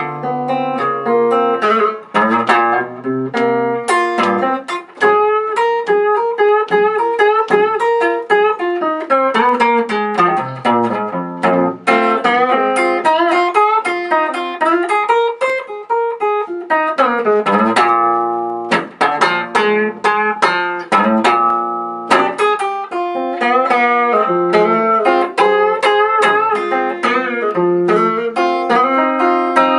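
Solo blues guitar playing an instrumental break between sung verses: quick picked single-note runs that climb and fall, mixed with repeated struck chords.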